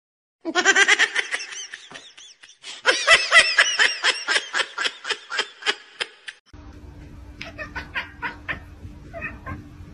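A person laughing hard, a rapid high-pitched ha-ha-ha running for about six seconds. After a sudden cut there is a quieter stretch with a steady low hum and fainter short repeated sounds.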